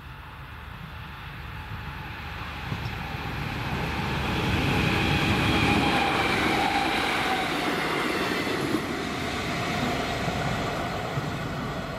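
Passenger train running over a level crossing. It grows louder to a peak about five seconds in and then fades slowly, with a rumble and a faint high tone sliding down in pitch as it passes.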